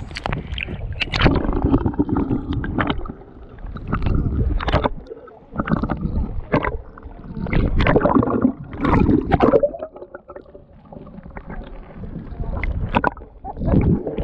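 Sea water splashing and gurgling around a camera moving through the surface and under it, in irregular surges.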